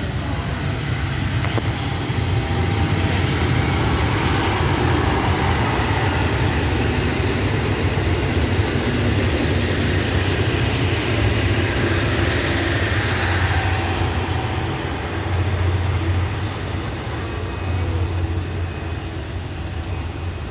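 KiHa 183 series diesel multiple unit passing through a station: a steady diesel engine drone with wheel and rail noise, loudest as the carriages go by about ten to fourteen seconds in.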